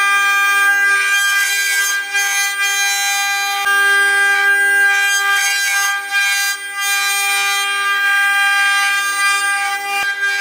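The high-speed spindles of a 12-head, 4-axis CNC wood router give a steady, high-pitched multi-tone whine while they carve spiral balusters, with rougher cutting noise coming and going as the bits bite into the wood.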